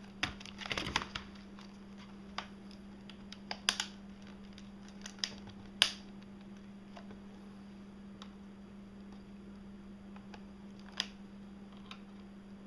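Scattered small plastic clicks and scrapes as a part of an Acer Aspire One D257 netbook is worked loose during disassembly, a cluster at the start, then single clicks every second or two, the loudest about six seconds in, over a steady low hum.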